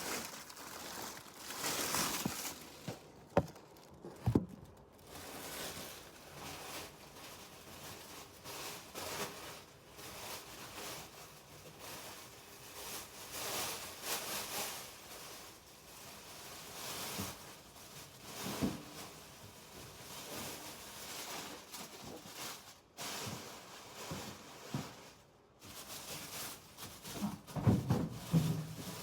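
Old paper documents being handled and rustled, with a few sharp knocks about three and four seconds in.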